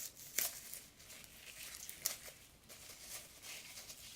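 Paper and cardboard fast-food packaging being handled: rustling and crinkling with a few sharp crackles, the strongest about half a second in and again about two seconds in.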